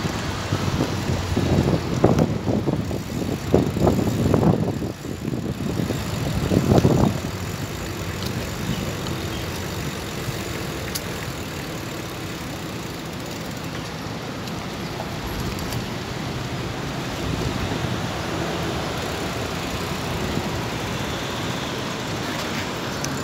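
Road traffic noise heard from a moving bicycle, with gusts of wind buffeting the microphone for the first seven seconds or so, then an even hiss of traffic.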